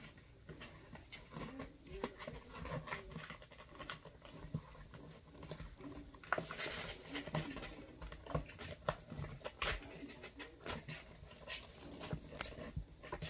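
Kittens' claws scratching and scrabbling on cardboard as they climb and paw at a box, a steady run of irregular light scratches and taps.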